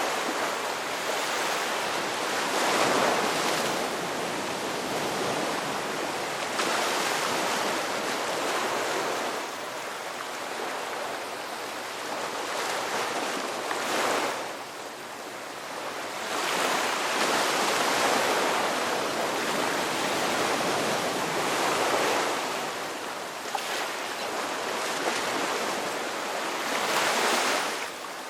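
Sea waves breaking and washing up the shore, the surf swelling and falling back every few seconds.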